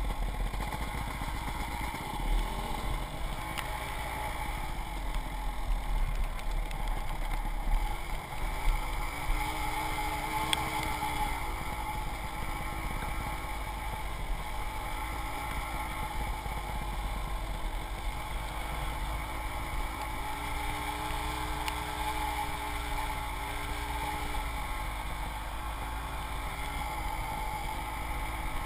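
Dirt bike engine running, its pitch rising and falling as the throttle opens and closes, with a few thumps about eight seconds in.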